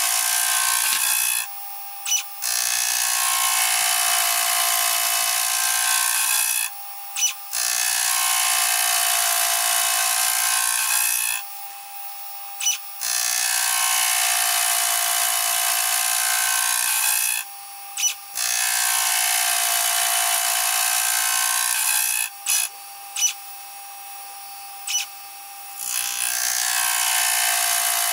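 Gear cutter in a belt-driven milling spindle cutting teeth in a gear blank on a 1936 Sloan and Chace lathe: a high-pitched cutting sound in passes of about four seconds each. Between passes come short breaks with brief sharp clicks, as the blank is indexed to the next tooth.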